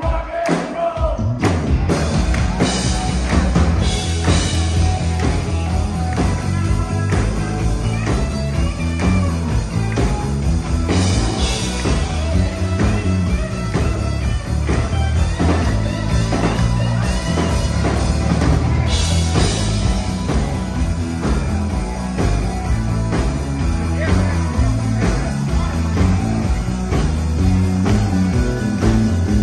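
Live rock number from a dance band: electric guitar, bass guitar and drums with a strong, steady bass beat, and a male singer on the microphone. The full band sound comes in about a second in, after a short break.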